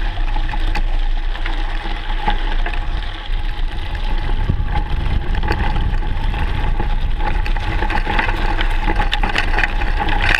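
Mountain bike rolling down a loose gravel track: heavy wind rumble on a fork-mounted camera's microphone, tyres crunching over stones and the bike rattling, with frequent clicks and knocks.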